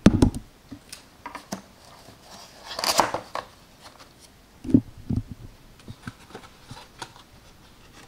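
Cardboard box being handled and opened by hand: a knock as it is set down, a rustling scrape of cardboard about three seconds in, then two dull thumps and a few small clicks and taps.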